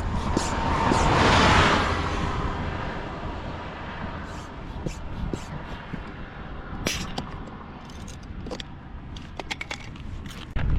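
A road vehicle passing close by, its noise swelling and fading over the first few seconds. After that there is steady wind noise with scattered light clicks and rattles.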